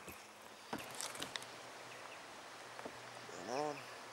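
Faint clicks and knocks of fishing tackle and a landed bass being handled in a kayak, then a short wordless man's voice sound about three and a half seconds in, rising then falling in pitch.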